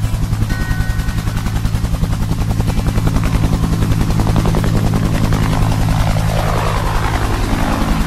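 Helicopter flying low overhead: rapid, even beating of the rotor blades over a steady low engine hum. It grows a little louder about three seconds in.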